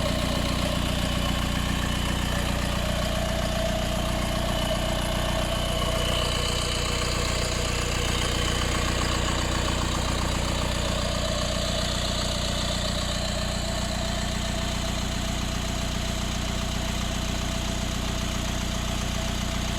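Four-cylinder turbodiesel of a 2007 Mercedes-Benz B180 CDI idling steadily on a warm start, its added rattle, likened by the owner to an extra engine or fan turning on, dying away. The rattle comes only on warm starts and is the sign of a fault the owner has not identified.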